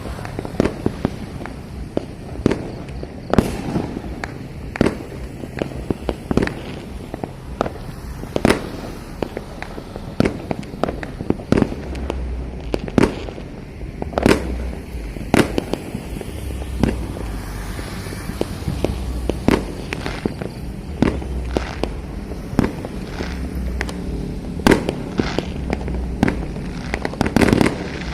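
Many fireworks going off across a city, one after another: dozens of irregular sharp bangs and pops, some close and loud, over a continuous low rumble of more distant bursts.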